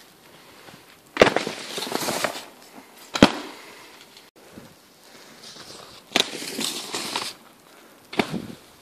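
Snow crunching and scraping under skis and boots: a few rough bursts of about a second each, with a sharp crack about three seconds in and a last short burst near the end as the ski jumper lands.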